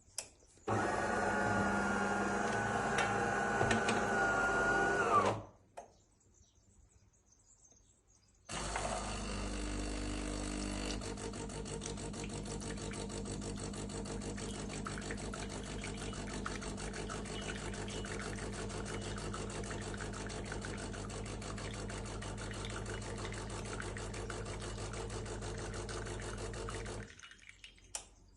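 DeLonghi bean-to-cup coffee machine running its start-up rinse cycle. Its pump buzzes for about five seconds, stops for about three, then runs again steadily for most of the rest, pushing water through the machine to clean it.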